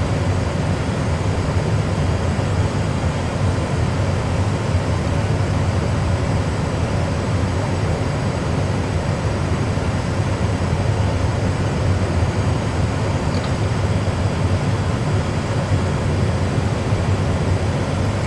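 Steady low rumble of an Airbus A320 full flight simulator's cockpit sound: simulated engine and airflow noise, with engine number one shut down after a flameout.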